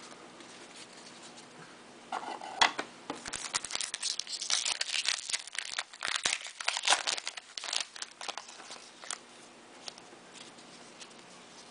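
A football trading-card pack's wrapper being torn open and crinkled by hand. It starts about two seconds in and dies away near the end.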